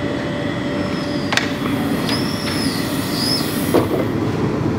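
Passenger train running, heard from inside the carriage: a steady rumble of wheels on the track with brief high wheel squeals around the middle. A click about a second and a half in and a knock near the end.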